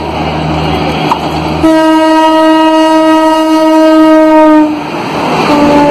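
WAP-7 electric locomotive of an Indian Railways Rajdhani Express sounding its horn as it runs through the station: one long steady blast of about three seconds, then a short blast near the end, over the rumble of the train.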